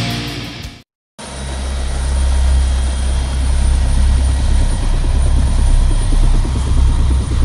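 Rock music fades out and there is a moment of silence. Then a steady, deep engine drone starts and holds at a loud, even level.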